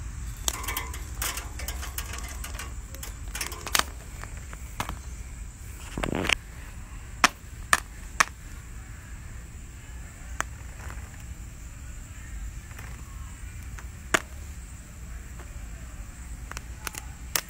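Popcorn kernels popping on hot charcoal under a grill grate: sharp single pops at irregular intervals, about a dozen in all, over a low steady background rumble.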